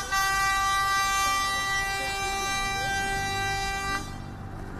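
A horn sounding one long, steady blast that cuts off about four seconds in, given in salute.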